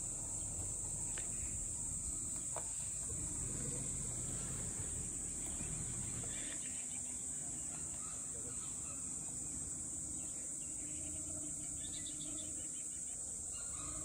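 Steady, high-pitched drone of an insect chorus, with a low rumble underneath.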